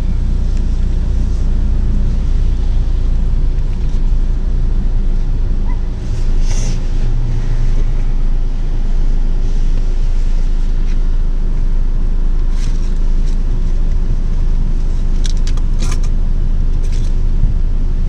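A car running, heard from inside the cabin: a low steady rumble, with a few faint clicks.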